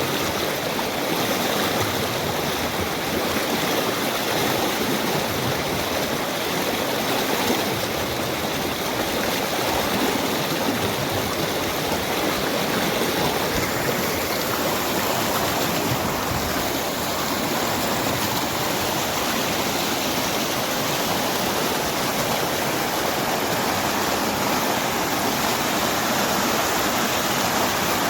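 Rushing water: a steady, even rush with no breaks.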